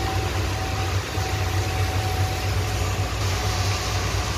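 Steady drone of heavy highway traffic, bus and truck engines running low, under an even hiss of heavy rain and tyre spray on the wet road; the hiss grows louder about three seconds in.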